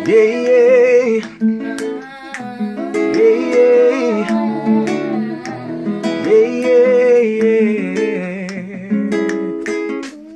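A small acoustic guitar strummed as accompaniment while several young voices sing a slow melody together, in three phrases of long held, wavering notes.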